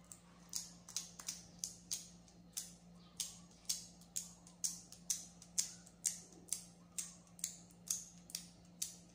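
Short, crisp rubbing strokes of a small plastic tool worked across a smartphone's screen protector, about two a second, pushing out the air bubbles trapped under it.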